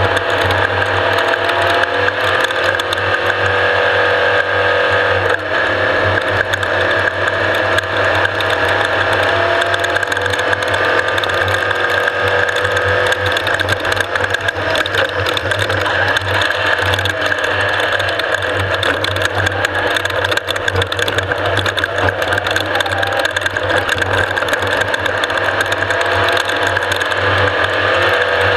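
Off-road race vehicle running at speed: steady engine and drivetrain noise under a constant dense rattle and clatter, without let-up.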